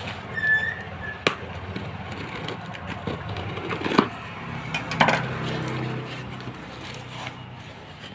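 Scissors cutting packing tape on a cardboard shipping box, then the cardboard flaps pulled open, with a few sharp snips and knocks. A low hum comes in for about a second after the middle.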